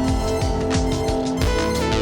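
Background music with a steady beat, its chord changing about one and a half seconds in.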